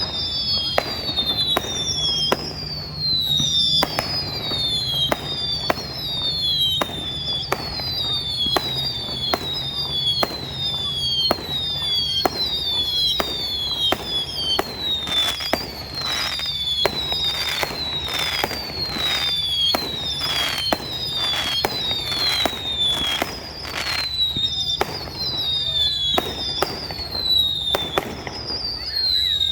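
Fireworks going off in a rapid string: sharp bangs, a little more than one a second, each paired with a short falling whistle.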